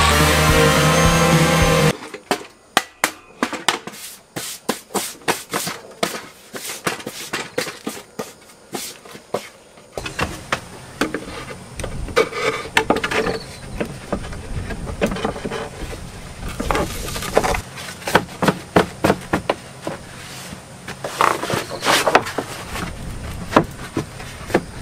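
Electric jigsaw cutting plywood, which stops abruptly about two seconds in. Then a long run of sharp wooden knocks, taps and clatter as plywood floor panels are laid and pushed into place on a van floor, busier in the second half.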